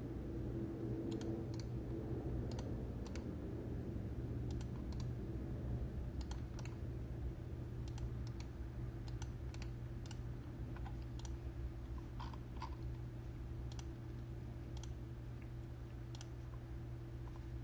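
Scattered, irregular clicking of a computer mouse and keyboard, over a steady low hum.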